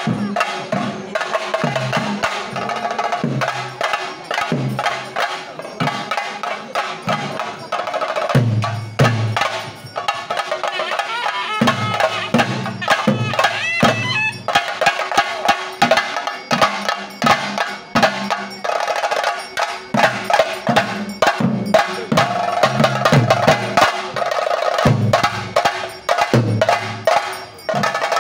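Chenda drums beaten with sticks in a fast, driving rhythm, dense rolls of sharp strokes with deeper beats coming in repeated groups. A steady ringing tone runs above the drumming.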